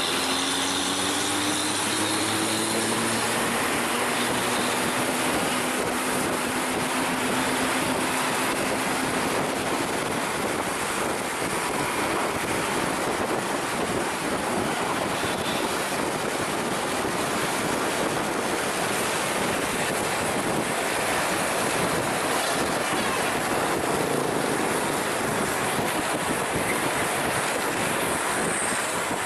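Steady rushing road and wind noise from a vehicle driving fast behind a coach bus. Over the first few seconds an engine's pitch rises slowly as it accelerates.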